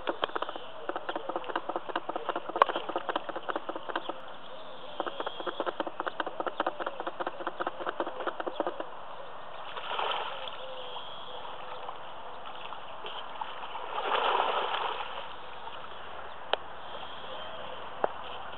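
Spawning carp splashing at the lake surface: a short splash about ten seconds in and a bigger, longer one at about fourteen seconds. Before that, a dense run of rapid small clicks lasts for roughly the first nine seconds.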